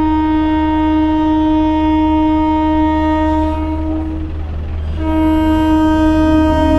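Electric locomotive horn sounding two long, steady blasts, the first about four seconds long and the second starting about five seconds in, over a low steady rumble.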